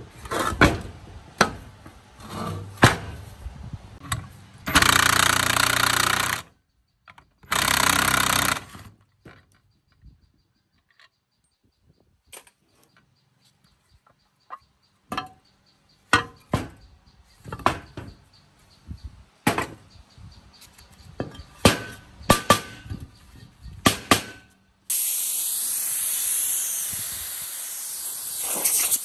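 Cast-aluminium saw base and metal parts knocked and set down on a steel work table, broken by two short runs of a cordless drill-driver a few seconds in. Near the end a steady loud hissing noise starts.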